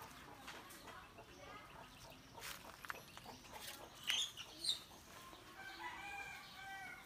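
Backyard chickens clucking faintly, with two sharp high chirps about four seconds in and a drawn-out call near the end.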